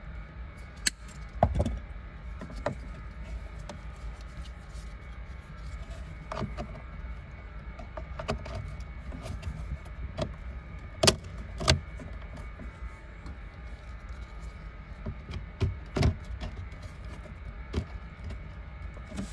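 Hands working a car's wiring harness: scattered sharp plastic clicks and knocks as a cable tie is snipped with pliers and connectors are handled and pushed into place. The loudest snaps come about a second and a half in, twice around eleven to twelve seconds, and near sixteen seconds, over a steady low hum.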